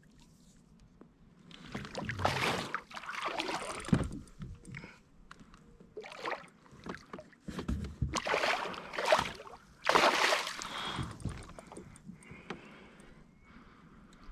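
Water splashing and knocking around a kayak in several irregular bursts, the loudest starting about ten seconds in, as a big hooked walleye thrashes at the side and is landed.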